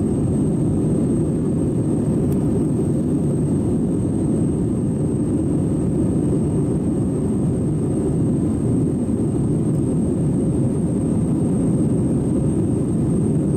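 Steady roar of a jet airliner's engines and airflow heard inside the passenger cabin, climbing out after takeoff. A faint steady high whine sits over it.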